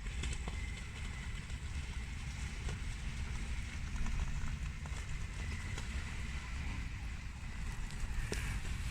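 Wind buffeting the microphone, a steady low rumble, with faint outdoor background noise and a few light clicks.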